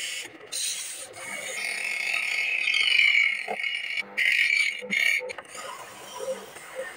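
Sandpaper held against a wooden disc spinning on a 3/4 HP electric motor: a loud rasping hiss that builds and then breaks off in several abrupt cuts a little past the middle, leaving a fainter steady hum.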